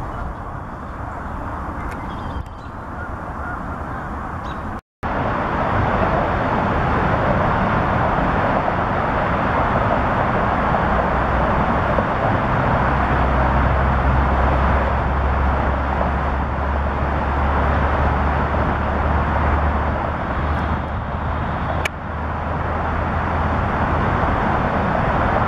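Steady roar of distant road traffic, with a low droning rumble added for several seconds in the middle; the sound cuts out for an instant about five seconds in.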